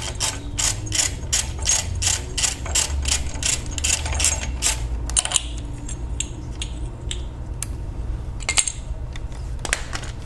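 Hand ratchet clicking quickly and evenly, about four to five clicks a second, as it spins out the reverse-threaded 16 mm bolt of an engine's belt tensioner pulley. About five seconds in the steady clicking stops, and a few scattered clicks and knocks follow as the pulley comes off.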